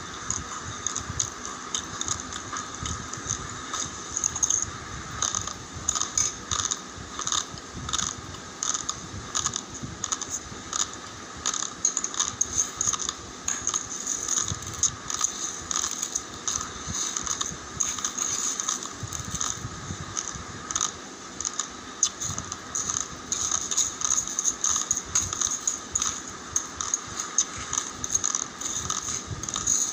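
Dry raw long-grain rice grains clicking and rattling: a dense, irregular run of small sharp clicks that goes on without pause.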